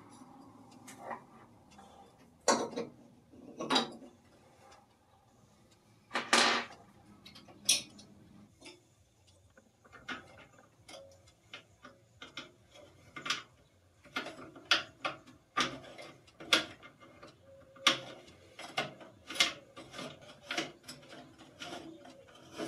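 Irregular clicks, knocks and light rattles from hands handling a small flux-core MIG welder and its parts: a few separate knocks in the first eight seconds, then a denser run of clicks in the second half.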